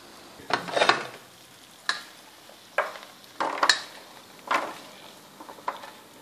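Silicone spatula stirring and scraping sticky caramel-coated popcorn in a stainless steel saucepan while the popcorn is scraped out onto a baking mat. The scrapes come in a series of short rustling strokes about a second apart.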